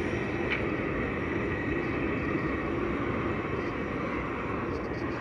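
Steady rushing noise of an LPG gas burner firing under a large covered cooking pot of water being heated.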